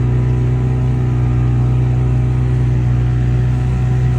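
Motorboat engine running steadily at cruising speed, a constant low drone with no change in pitch.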